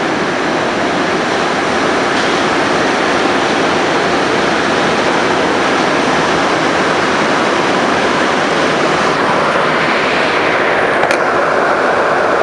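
Rubber-tyred MR-73 metro car heard from inside, running out of a station into the tunnel: a loud, steady running noise, with a single sharp click near the end.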